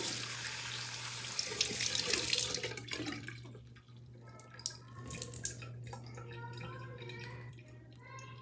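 Tap water running hard into a water balloon, filling it, until the flow shuts off about three seconds in. Quieter handling noises with a few faint squeaks follow.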